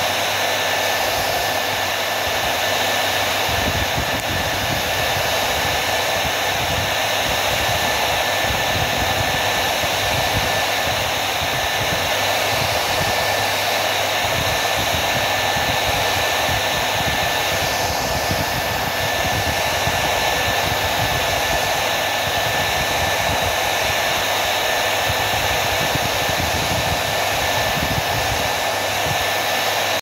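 Handheld hair dryer running steadily, blowing air onto glowing barbecue coals: an even rush of air with a faint steady high whine.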